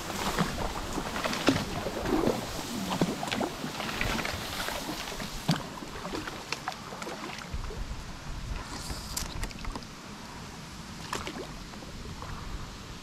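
Reed stalks rustling and scraping along an inflatable kayak's hull and paddle as it is pushed through a dense reed bed, with paddle strokes in the water and many small crackling ticks. It grows quieter and sparser about halfway through as the kayak reaches open water.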